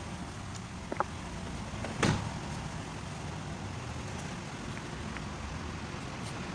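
Steady low background rumble, with a faint click about a second in and one loud knock about two seconds in.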